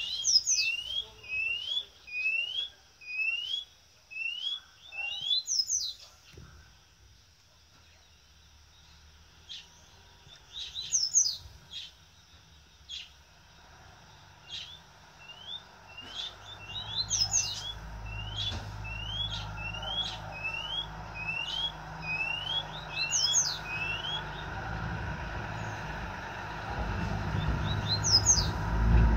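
White-bellied seedeater (chorão) singing: a run of short rising whistles, about two a second, with a few sharper, higher notes mixed in; the song stops for about ten seconds and then resumes. A low rumble builds through the second half and is loudest near the end.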